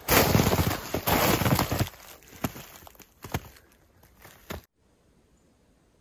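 Footsteps crunching through snow: a few heavy steps, then lighter crunches and clicks. The sound cuts off suddenly just before five seconds in, leaving near silence.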